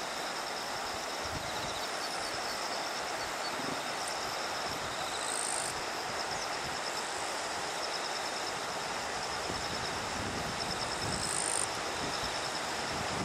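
Steady outdoor rushing noise, with a high, rapidly pulsing chirp and a few brief higher squeaks over it.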